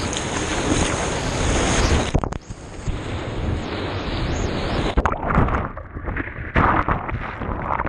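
Rushing whitewater and wind on a microphone riding just above the water on a surfboard. The rush is dense and steady at first, then breaks off abruptly about two seconds in. From about five seconds in it turns to irregular splashing and sloshing as foam washes over the camera.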